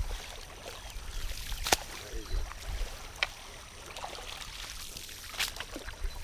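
A long-handled dip net dragged and scooped through shallow muddy water, sloshing and splashing, with a few sharp clicks along the way.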